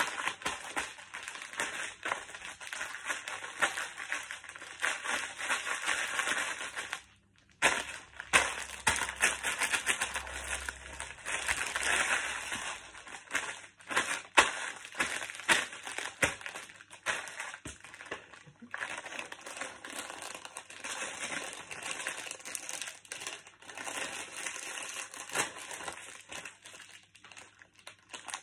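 Packets of crisps crushed underfoot in ballet pumps: the plastic bags crinkle while the crisps inside crunch and crackle in quick, sharp bursts, with a short pause about seven seconds in.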